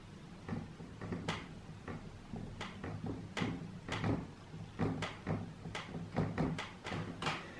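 Dry-erase marker writing on a whiteboard: a quiet, irregular run of short strokes and taps, several a second, as the letters are drawn.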